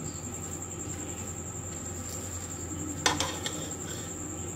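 Steel ladle stirring a thick cooked wheat-and-lentil porridge in an aluminium pressure cooker, with a sharp clink of the ladle against the pot about three seconds in and a couple of lighter taps after it. A steady high whine and a low hum run underneath.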